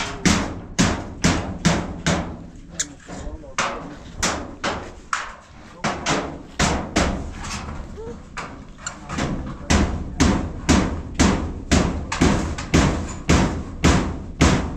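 Repeated hammer blows at a steady pace of about two a second, each a sharp knock.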